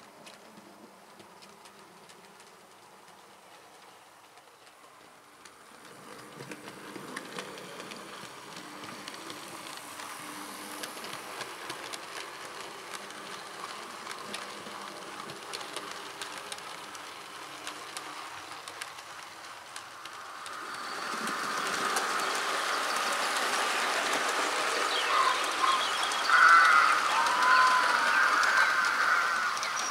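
OO gauge model train running on the layout's track, its wheels clicking over the rail joints along with the motor's hum. It grows louder about six seconds in and louder again from about twenty seconds in, with a few brief high tones near the end.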